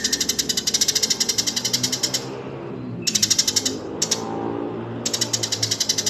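Rapid, ticking songbird chatter, about ten notes a second, in three bursts, from a bird-training recording that mixes Eurasian tree sparrow and white-rumped shama song. A fainter, lower call sounds underneath in the second half.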